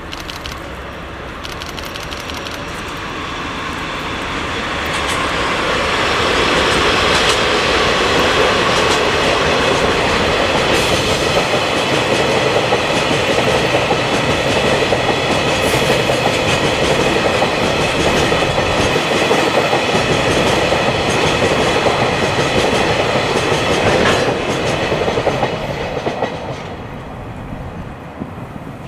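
A freight train hauled by two DD51 diesel-hydraulic locomotives passes, pulling a string of tank wagons that clatter over the rail joints. The sound builds over the first few seconds, stays loud, then falls away near the end as the train recedes.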